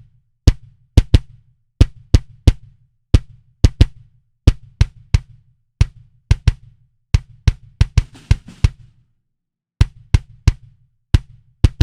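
Kick drum loop playing on its own, each hit a sharp click with a short low thump, processed through an envelope plugin while its attack setting is being changed. The loop stops briefly about nine seconds in, then starts again.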